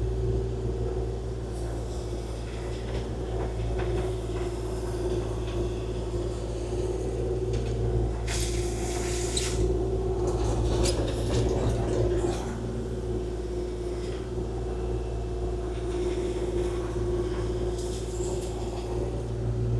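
Kubota KX040-4 excavator's diesel engine running steadily, with a few short scraping knocks of the machine working partway through.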